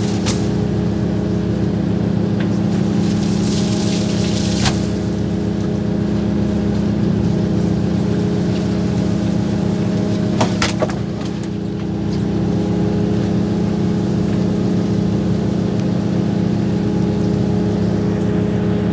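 Fishing boat's engine running steadily, a constant low drone with a few short knocks about five seconds in and twice around ten seconds in.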